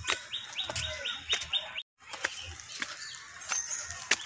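Footsteps crunching on dry leaves and loose stones on a steep hill path, with a bird calling a quick run of about seven rising notes in the first two seconds. The sound drops out for a moment just before two seconds in.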